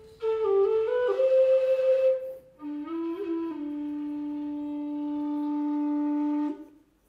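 Irish whistle playing a slow tune: a short phrase of stepping notes, a brief break, then a second phrase that settles on one long held low note and stops just before the end.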